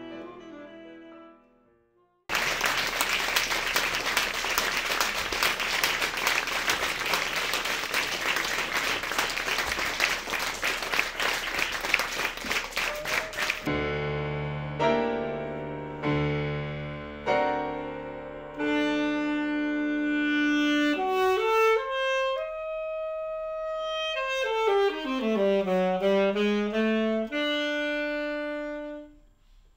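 An alto saxophone piece fades out over the first two seconds. Then comes about eleven seconds of audience applause, and after it an alto saxophone plays a melody with piano accompaniment, including a quick falling-and-rising run about two-thirds of the way through, before fading near the end.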